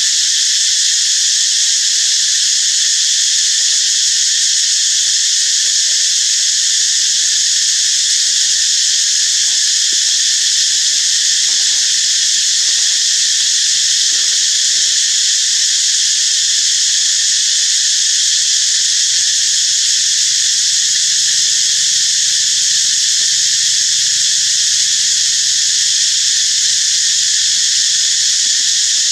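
Loud, steady chorus of insects: a continuous high-pitched buzzing drone that holds level without a break.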